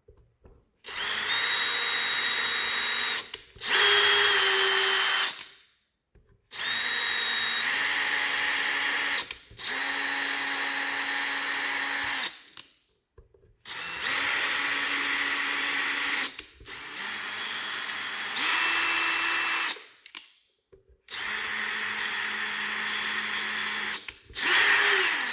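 Power drill driving a thread tap into holes, run in short bursts of two to three seconds with brief pauses between, alternately screwing the tap in and backing it out. The motor whine holds steady within each run, some runs at a higher pitch than others.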